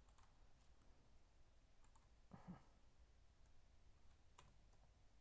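Near silence: room tone with a few faint, scattered clicks of a computer mouse during copy-and-paste work.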